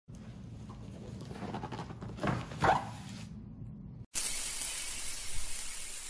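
A low background rumble with two short louder sounds. Then, after a sudden cut, a logo-intro sound effect: a bright, hissing sparkle that starts abruptly and slowly fades away.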